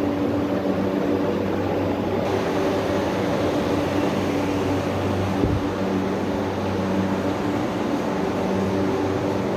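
Steady drone of air-handling machinery: a low hum with several even overtones over a constant hiss, the hiss getting brighter about two seconds in. A single dull bump comes about five and a half seconds in.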